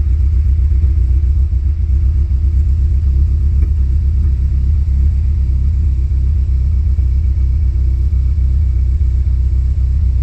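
2013 Cadillac ATS's 2.0-litre turbocharged four-cylinder engine idling roughly with a steady low rumble: it is misfiring, with fouled spark plugs reported.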